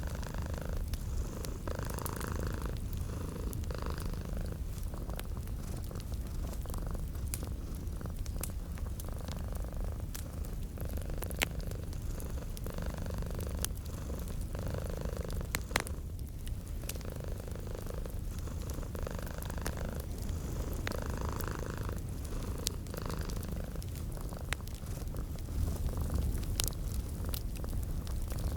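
Domestic cat purring steadily in a low continuous rumble, with scattered sharp crackles of a wood fire throughout.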